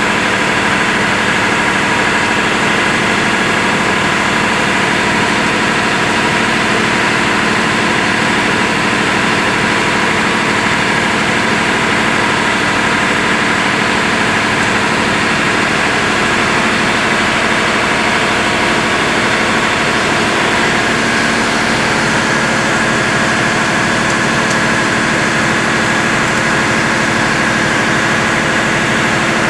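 Large diesel engine running steadily: a loud, even drone that does not change.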